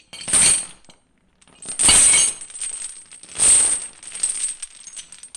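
Metal clattering and jingling: three loud crashes about a second and a half apart, each trailing off in a jingle.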